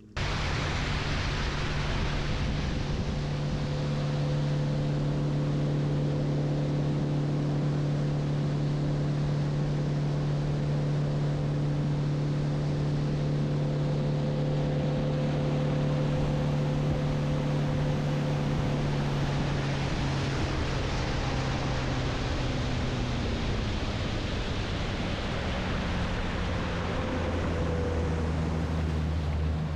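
A boat motor running steadily under way, its even hum over a rush of water and wind. The hum drops in pitch near the end as the boat slows.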